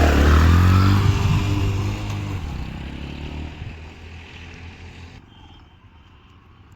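Motorcycle engine running loudly, then fading away over a few seconds as it moves off.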